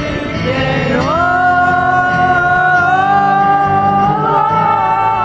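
Live acoustic rock performance: a male voice rises about a second in and holds one long sung note over a steady acoustic accompaniment.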